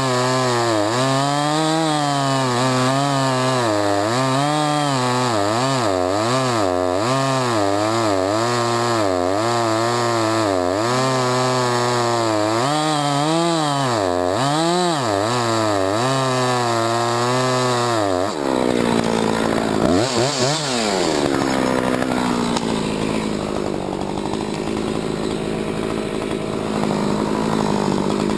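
Husqvarna 357XP two-stroke chainsaw cutting wood, its engine note rising and falling about once a second under load. After about eighteen seconds the note drops and turns noisier, rises briefly once, then settles into a steadier, lower running note.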